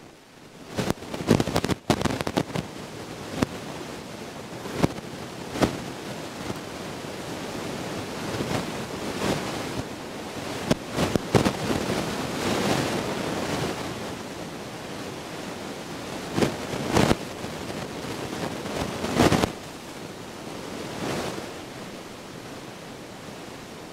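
Wind buffeting the microphone: a rushing noise that swells and fades in gusts, with sharp pops of buffeting, loudest in the first few seconds, around the middle and about three-quarters of the way through.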